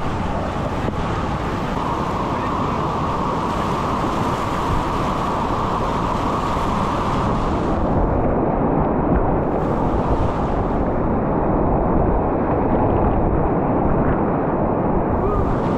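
River whitewater rushing steadily, with wind buffeting the camera microphone. About halfway through, the hiss on top drops away and the rush turns duller and muffled.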